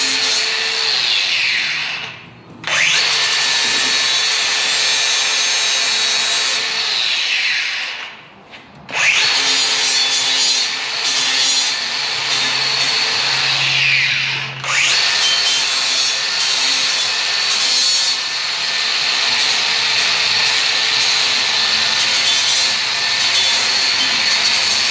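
Cordless drill boring into the steel body of the cab in four long runs. At the end of each run the motor whine drops in pitch as the trigger is let go, then it starts again after a short pause.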